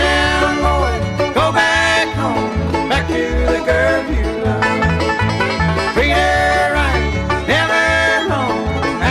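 Bluegrass-style country music: banjo picking over a steady pulsing bass, with a sliding melody line above.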